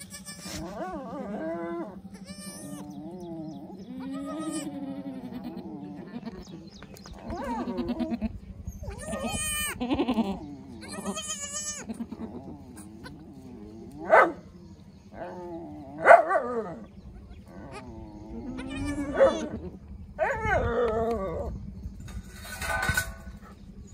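A doe goat and her newborn kids bleating again and again, each call wavering in pitch, with a few much louder calls in the second half.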